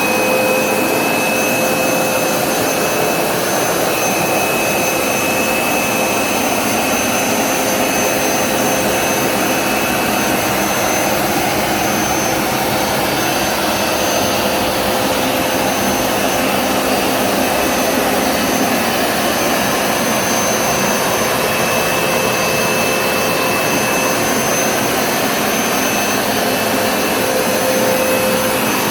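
Hoover SmartWash Pet Complete carpet cleaner running steadily on a rinse pass, its suction motor giving a steady whine over a rush of air as it pulls soapy water back up out of the carpet.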